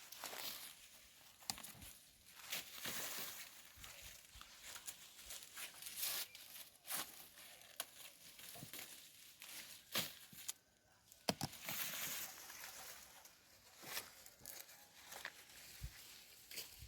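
Dry maize leaves and husks rustling and crackling in irregular bursts as cobs are picked by hand, with brief snaps and tearing sounds.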